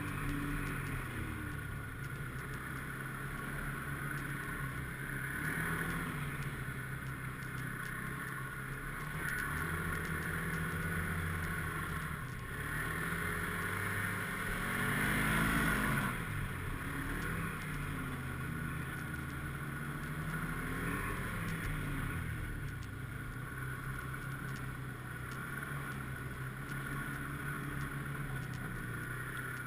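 Snowmobile engine running under changing throttle, its pitch rising and falling. It climbs to its loudest just past the middle, then drops off sharply as the throttle is let go.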